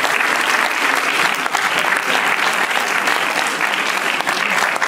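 Audience applauding steadily: many hands clapping at once in a hall.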